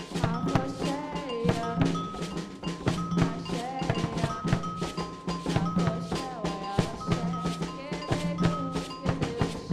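Youth percussion group playing drums together in a fast, steady rhythm, with held melodic tones over the drumming.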